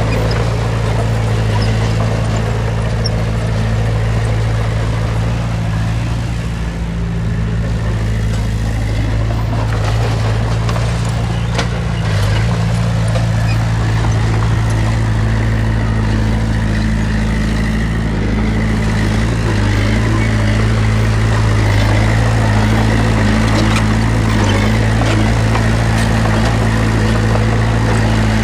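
Heavy diesel engine of an earthmoving machine running steadily at a constant pitch, a little louder in the second half, with a few faint sharp clicks.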